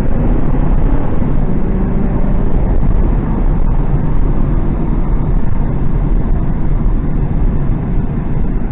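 Ford Crown Victoria Police Interceptor's 4.6-litre V8 under hard acceleration from a stop, with road noise. It pulls steadily with no obvious stumble, which the driver takes as the cylinder 5 misfire being cured by the replacement coil pack.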